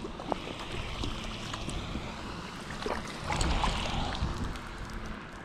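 Wind buffeting the microphone over small clicks of handling, with a splash of water about three seconds in as a hooked brown trout thrashes beside the landing net.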